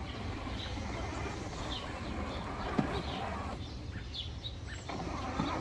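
Outdoor ambience: birds chirping here and there over a steady low rumble, with a single sharp tick about three seconds in.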